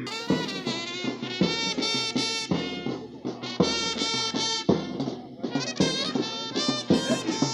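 Music with held, brass-like notes over a beat of percussion.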